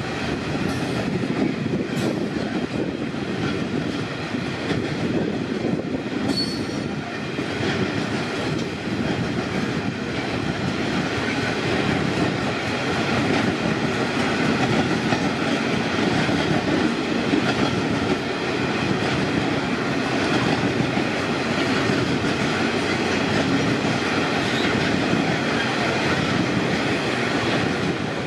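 Coal hopper wagons of a long freight train rolling past, a steady noise of steel wheels running on the rails.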